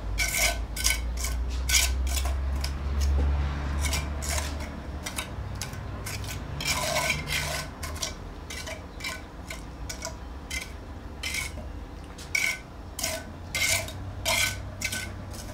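Quick, irregular scraping strokes of a hand tool spreading wet cement render over the inside wall of a cast cement bonsai pot, with a low rumble under the first few seconds.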